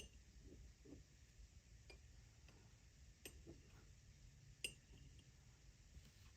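Near silence, broken by three light clicks about a second and a half apart, the last the loudest.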